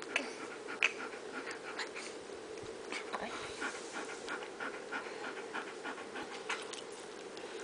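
A baby panting in quick, irregular breaths with small mouth clicks while sipping ice water from a glass.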